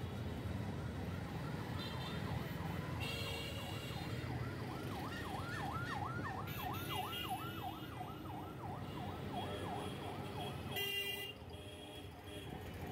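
Ambulance siren in a fast yelp, a quickly rising and falling wail about four times a second. It grows to its loudest around the middle and fades away near the end, over street traffic rumble. A short high beep sounds near the end.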